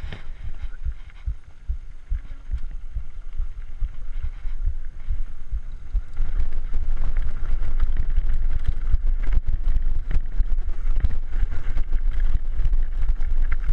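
Wind buffeting the mountain bike rider's camera microphone during a fast descent on a dirt trail, with tyres crackling over gravel and the bike rattling over bumps. It grows louder and busier about six seconds in.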